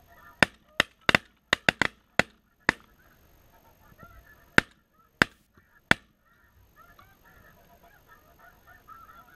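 A volley of shotgun fire at snow geese: about nine shots in quick, overlapping succession, too fast for one gun, then three more spaced about half a second apart. Snow geese call steadily in the background.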